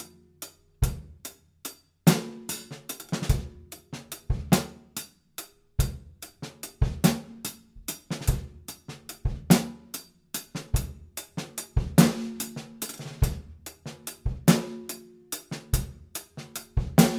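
Recorded acoustic drum kit playing a steady groove on its own: bass drum, snare and hi-hat/cymbals in an even, repeating pattern, with the heaviest backbeat hits about every second and a bit.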